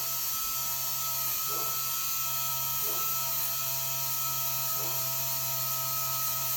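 Small rotary tool spinning a wire wheel with a steady high whine, with a few brief scrapes as the wheel is pressed against the foot pedal's copper contact to clean off the carbon.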